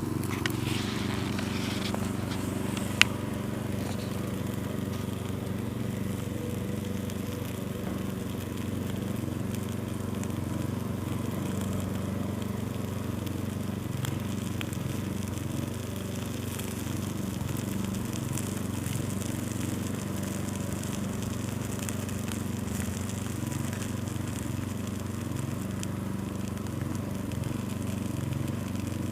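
Burning prawn crackers crackling faintly, with a single sharp pop about three seconds in, over a steady low hum.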